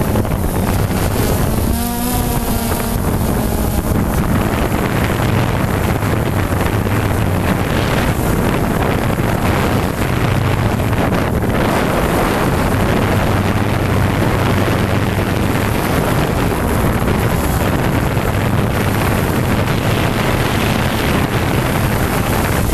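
Quadcopter drone's motors and propellers buzzing steadily, mixed with wind noise on its onboard camera microphone, as it descends to land.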